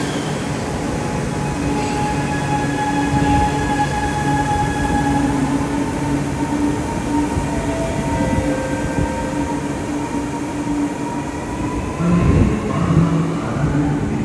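Chennai Metro electric train moving along the platform: steady rolling noise with a held electric whine of several tones. It gets louder and lower-pitched about twelve seconds in.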